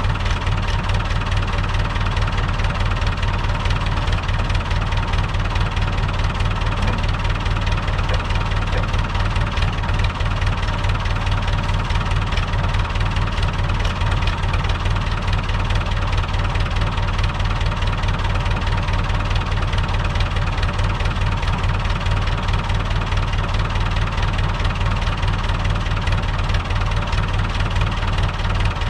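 Long 560 tractor's diesel engine running steadily at idle.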